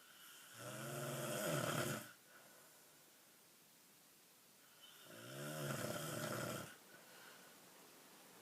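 A person snoring: two long, loud snores about four seconds apart, each lasting a second and a half to two seconds, with a buzzing pitch that bends up and then down.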